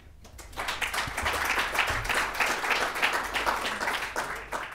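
Audience applauding, dense clapping that starts about half a second in and dies away near the end.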